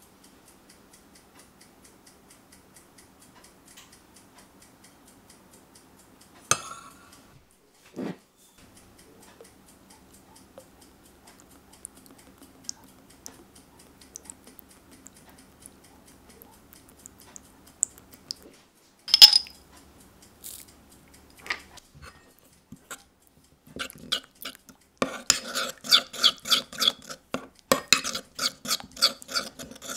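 A metal spoon clinking and scraping in a small pan while a honey, soy and ginger glaze is mixed: scattered light taps at first, one sharp click about two-thirds of the way through, then rapid, busy stirring over the last few seconds.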